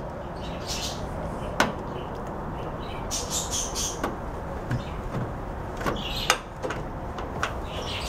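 Plastic handling sounds as a Kenmore microwave's white plastic control-panel housing is fitted back onto the oven's metal front frame: light scraping and rubbing, with a sharp click about one and a half seconds in and another about six seconds in.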